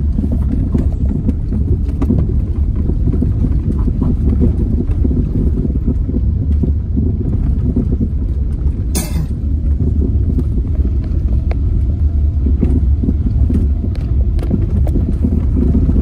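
Steady low rumble of a car driving over a rough road, heard from inside the cabin: engine and tyre noise. A brief sharp noise cuts in about nine seconds in.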